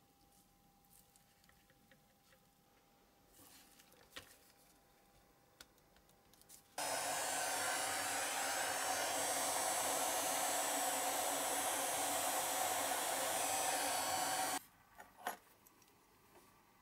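A small electric blower runs steadily for about eight seconds, switching on and off abruptly, followed by a few light clicks.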